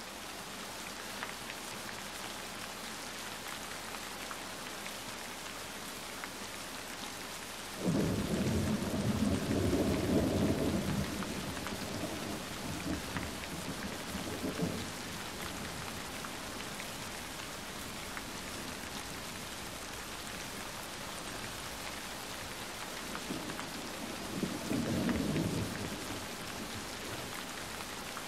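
Steady rain, with a roll of thunder that starts suddenly about eight seconds in and lasts a few seconds, and a second, shorter roll near the end.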